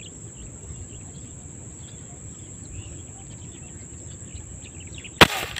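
Steady high-pitched insect drone with faint bird chirps, then, about five seconds in, a single sharp, loud airgun shot.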